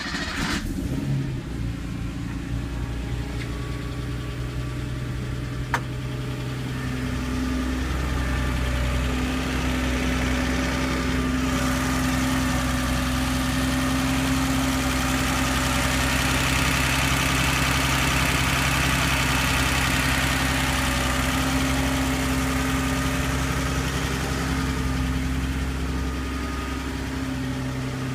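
Porsche 930's air-cooled turbocharged flat-six idling steadily just after starting, with one sharp click about six seconds in. The owner suspects a valve train noise at idle.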